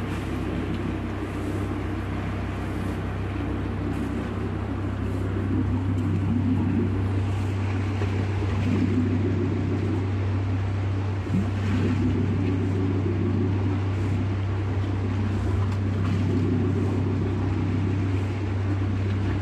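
A boat's engine running steadily at idle, a continuous low hum.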